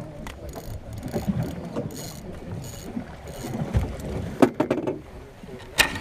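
Wind and water noise aboard a small fishing boat at sea, with a few sharp knocks on board, the loudest near the end.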